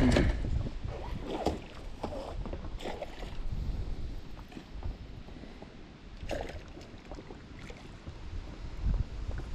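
Water splashing and sloshing at the shoreline while a hooked fish is being landed, with scattered short splashes and knocks and wind rumbling on the microphone, strongest about the start and near the end.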